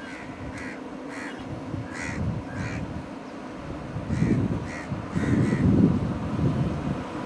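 Crows cawing repeatedly, in short harsh calls about every half second. A low rumbling noise grows louder in the second half and becomes the loudest sound.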